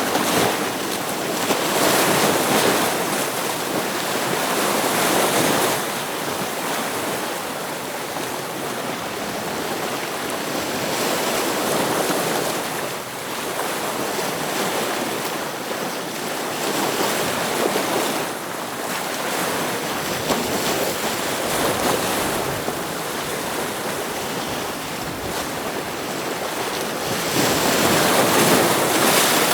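Ocean waves breaking against rocks, a continuous wash of surf that swells every few seconds as each wave hits, loudest near the end.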